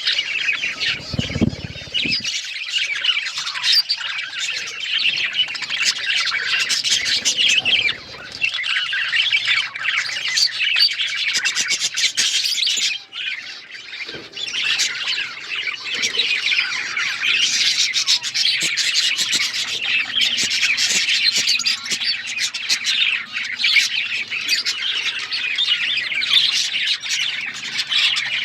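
A group of pet budgerigars chirping and chattering without a break, many short high calls overlapping. There is a short low thud about a second in.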